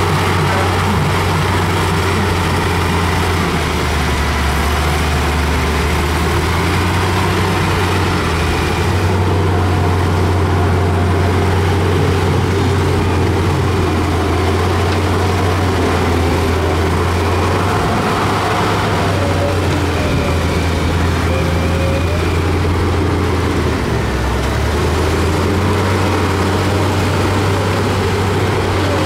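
Diesel engine of heavy earthmoving machinery running steadily with a low drone that dips in pitch a couple of times as the load changes.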